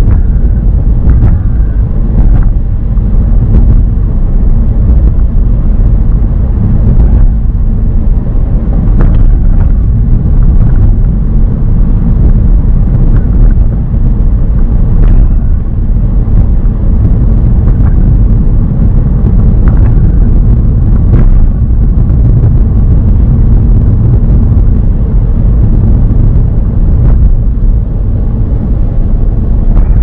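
Cabin noise of a 2003 Saab 9-5 Aero driving along: a loud, steady low rumble of road, tyres and engine, with a few faint clicks here and there.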